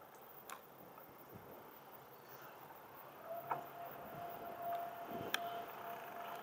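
Riding noise from a bicycle-mounted camera: a steady rush that grows louder, with a few sharp clicks and rattles. A little past halfway a steady, high whine sets in and carries on.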